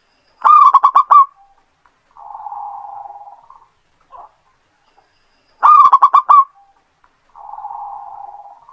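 Zebra dove (perkutut) singing its cooing song twice: each phrase is a loud run of about five quick notes followed by a softer, rolling purr lasting over a second.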